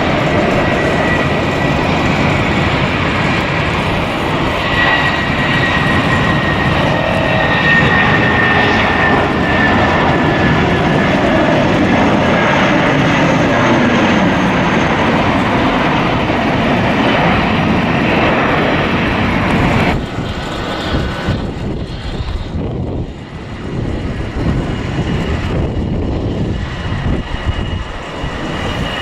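Jet airliner engines passing, a loud rushing noise with a high whine that slowly falls in pitch. The sound drops off abruptly about two-thirds of the way through, leaving quieter, uneven engine noise.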